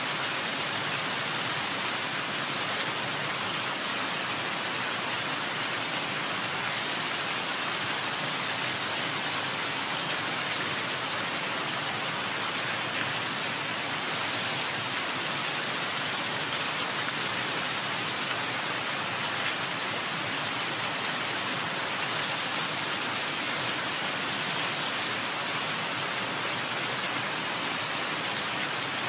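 Falling water making a steady, even hiss that holds constant throughout, with no single drops or splashes standing out.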